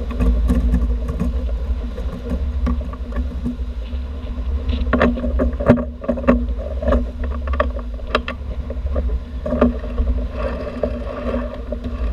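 Sailboat sheet winch being cranked by hand to tighten the jib sheet, with irregular clicks and knocks from the winch and handle, most of them between about five and ten seconds in, over a steady low rumble.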